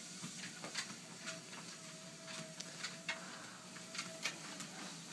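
A dog's paws tapping lightly and irregularly on a moving treadmill belt, over a faint steady whine from the running treadmill that comes in about a second in.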